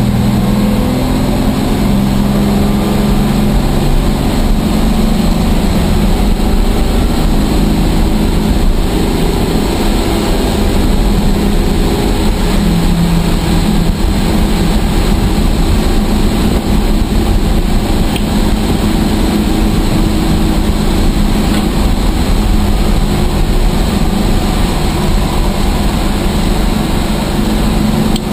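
Rambler race car's engine running hard at racing speed, heard from inside the cabin. Its pitch shifts up and down now and then with throttle and gear changes, over steady wind and road noise.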